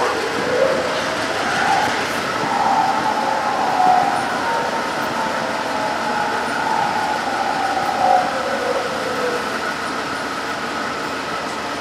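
Amtrak passenger train's cars, Superliner coaches and a dome car, rolling slowly along the track: a steady rumble with a faint whine that wavers up and down in pitch.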